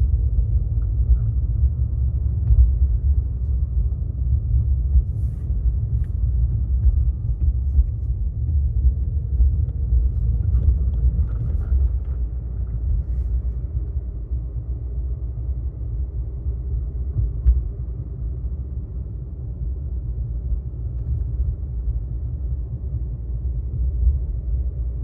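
Low steady rumble of a Chevrolet Cruze on the move, with a few faint short creaks while it turns: the creaking-when-turning noise the owner is trying to pin down.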